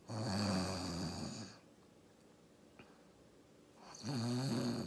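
A woman imitating snoring: two long, low, breathy snores, the first lasting about a second and a half, the second starting near the end.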